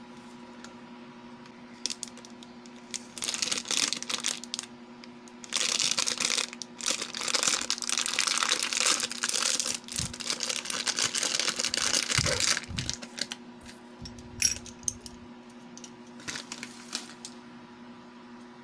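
Clear plastic packaging bag crinkling and tearing as it is opened by hand, in short bursts at first and then a longer loud stretch in the middle. A few light clicks follow near the end.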